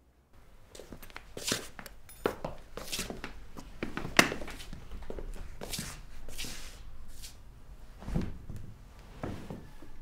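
Shoe footsteps and knocks on a tiled floor, then fabric rustling as a person lies down on a mattress with a duvet, with a few soft thumps. The sharpest knock comes about four seconds in.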